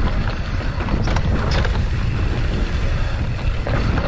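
Trek Slash mountain bike ridden down a dirt trail: wind rushing over the microphone and a steady low rumble of tyres on dirt, with scattered clicks and rattles from the bike over rough ground.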